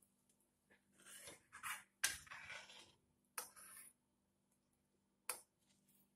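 Metal ladle stirring thick dal in a metal kadhai: a few short scrapes and clinks against the pan with soft sloshing, in quiet gaps.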